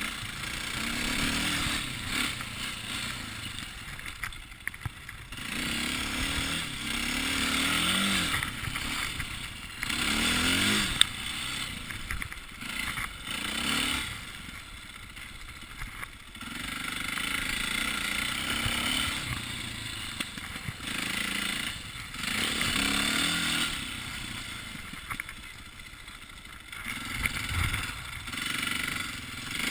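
KTM 450 XC-W dirt bike's single-cylinder four-stroke engine, revving up and easing off again and again as the rider works the throttle on a snowy trail.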